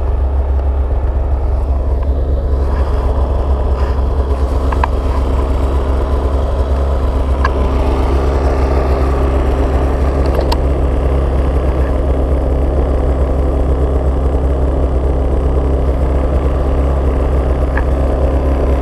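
Polaris XCR 800 snowmobile's two-stroke twin engine running as a steady low drone whose pitch holds constant, with a few faint clicks.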